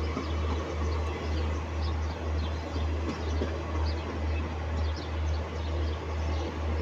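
Indian Railways ICF passenger coaches running past at speed: a steady rumble of wheels on the rails with a low throb about twice a second. Faint high chirps come through now and then.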